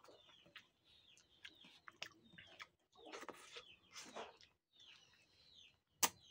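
Wet sucking and lip-smacking of a person eating a ripe mango by hand, with a sharp smack about six seconds in. Short, high chirps falling in pitch sound again and again underneath.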